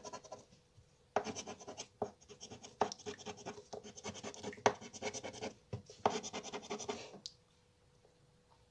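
A scratch-off crossword lottery card scraped with a small green scraper: runs of quick back-and-forth strokes rasping off the coating, pausing briefly about a second in and stopping about seven seconds in.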